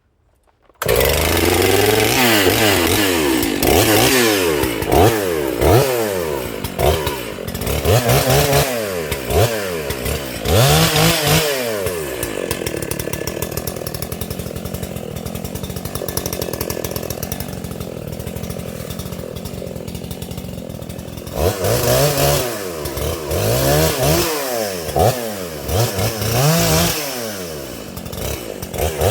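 80cc Makita EA7900P / Dolmar 7900 two-stroke chainsaw with a freshly sharpened chain, cutting in suddenly about a second in and blipped up and down in quick revs. It holds a steady run under load for about nine seconds in the middle, as in a cut through oak, then goes back to short revs near the end.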